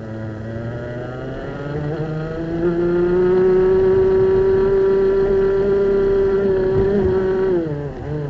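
Racing kart's two-stroke engine heard onboard at full throttle: its pitch rises for about two and a half seconds as the engine revs up to about 11,000 rpm, holds steady at high revs for about five seconds, then drops sharply near the end as the driver comes off the throttle.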